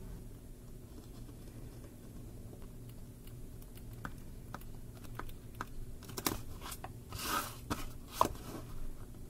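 A pen scratching and ticking on notebook paper as lines are ruled and written. About six seconds in, the spiral notebook and plastic ruler are picked up and moved: paper rustles, and there is a sharp click near the end.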